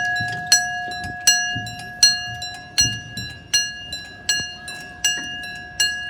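Level crossing audible warning alarm sounding: sharp electronic bell-like strikes over a steady tone, repeating about every three-quarters of a second, with the last strike near the end.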